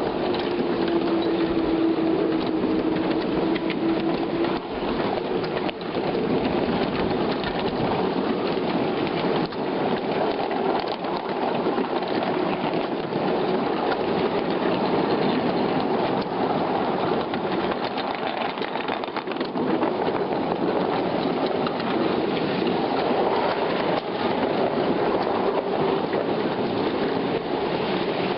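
Miniature 5 inch gauge ride-on electric train running on the rails: a steady rushing hiss of wheels on track with scattered clicks, and a faint motor whine that dips slightly in pitch early on and returns near the end.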